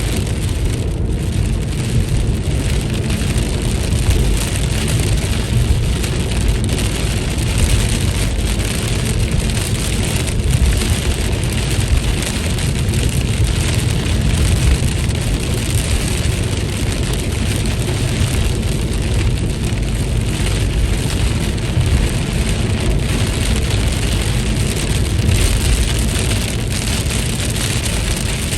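Steady rainfall, an even hiss with a strong low rumble beneath it.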